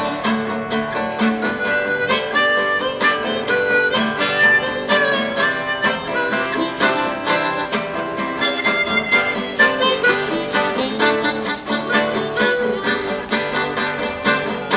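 Harmonica solo over a steadily strummed guitar: an instrumental break between verses of a country-blues song played live.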